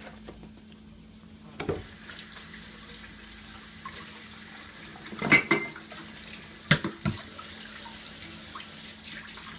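Kitchen faucet turned on about two seconds in, its water running steadily into a stainless steel sink and over a razor clam held in the stream, rinsing the guts out of the clam's digger. A few sharp knocks and clatters come from the sink in the middle, the loudest about five seconds in.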